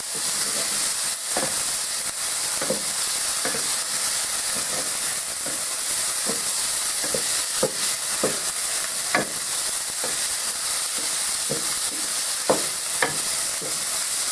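Chopped yellow and green peppers sizzling in olive oil in a frying pan, a steady hiss, made livelier because the peppers are watery and release their juice into the hot oil. A utensil stirring the pan knocks and scrapes every half second to a second.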